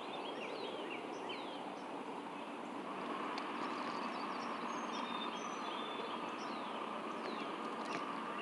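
Several birds chirping and whistling, with many short, falling calls, over a steady rushing background noise that grows a little louder about three seconds in.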